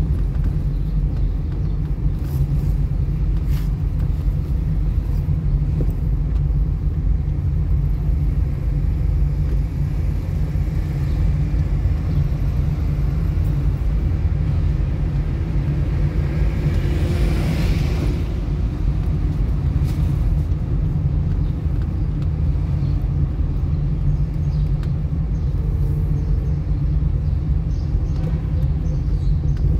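Steady low rumble of a car driving, with a rush of noise that swells and fades about halfway through.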